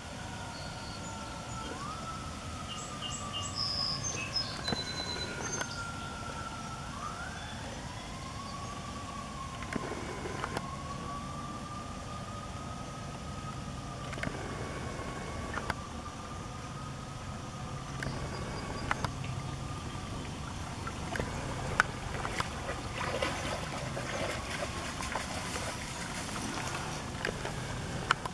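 A distant siren wailing, one tone rising and falling slowly, over a steady background hiss with occasional faint clicks. The siren fades out about three quarters of the way through.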